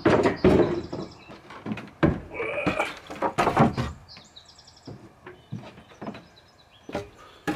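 Wooden boards being pulled from a stack and handled: a series of uneven knocks and clunks of wood on wood, with a few short, high squeaks.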